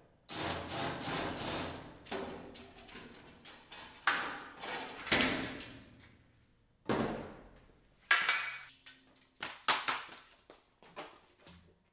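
Cordless drill briefly drilling out a rivet in the aluminum trailer trim, then a run of metal clanks, thuds and rattles as the long aluminum trim strip comes free and is handled, some hits ringing.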